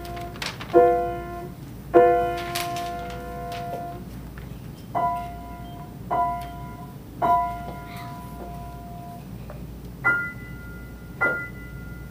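Grand piano played slowly by a young beginner: simple chords struck one at a time, about one a second in groups of three with short pauses between, each left to ring and fade.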